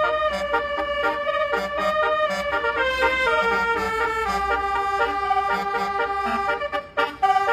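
Basuri telolet bus horn playing a melody of held, reedy notes that step from pitch to pitch, with a light ticking beat under it. It breaks off for a moment near the end.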